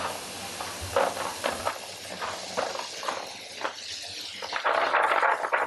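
Tap water running into a plastic tub of white beans as they are rinsed, with the beans and tub clattering and knocking in short irregular clicks; the water grows louder near the end.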